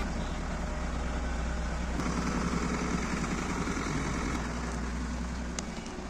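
Mahindra Scorpio SUV's engine idling, a steady low hum.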